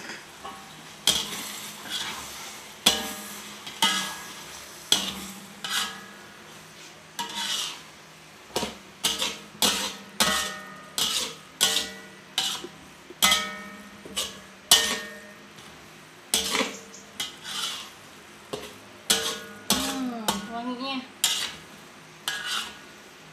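A spatula stirring beef rendang in a cooking pot, scraping and knocking against the pot about once or twice a second in an uneven rhythm. The meat is being stirred often so it doesn't burn as the sauce cooks down.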